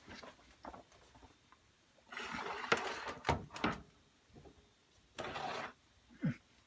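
Chihuahua feeding at its bowl: scattered sharp clicks and two short rustling spells, one about two seconds in and one near five seconds, with a brief falling sound near the end.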